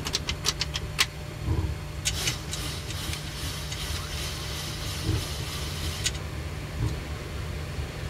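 Boeing 737 flight deck while taxiing: steady low rumble of the engines at idle. A quick run of sharp clicks comes in the first second, and a hiss rises about two seconds in and cuts off about six seconds in.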